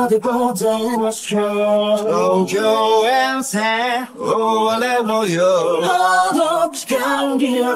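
A male voice singing alone, with no backing instruments: a vocal track separated from the song's mix. The sung notes are held and bend up and down, with vibrato on the long notes and a short break between phrases about four seconds in.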